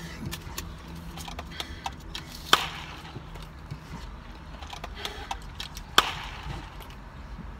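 Small handling noises, light clicks and rustles, as a plastic drinking straw is fiddled with, with two sharp clicks about three and a half seconds apart.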